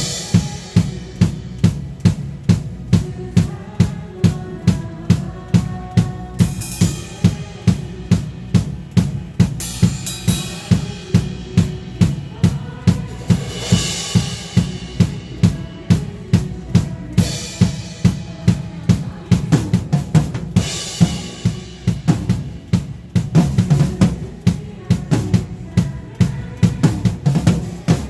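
Drum kit playing a steady beat of about two strong hits a second, with cymbal crashes every few seconds, over backing music for a praise song.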